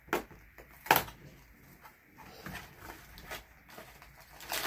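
Small cardboard snack box being handled and opened on a table: a couple of sharp knocks in the first second, faint scraping and rustling of the cardboard flaps, and another knock near the end.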